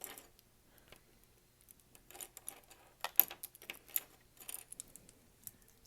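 Light clicks, taps and rustles of paintbrushes and painting supplies being handled and set down, scattered irregularly, with the sharpest tap about three seconds in.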